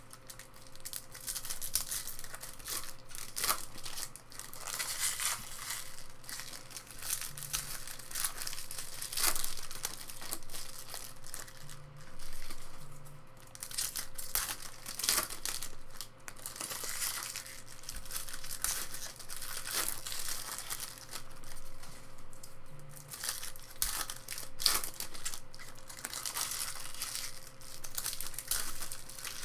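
Foil trading-card packs being crinkled and torn open by hand: an irregular run of crackling and tearing with sharp rustles, under a faint steady hum.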